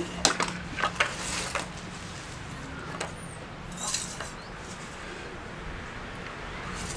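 Glass bangles clinking lightly and a hand brushing flour across a wooden rolling board. There are several small clicks in the first second and a half, another around three seconds in, and a short brushing sound about four seconds in.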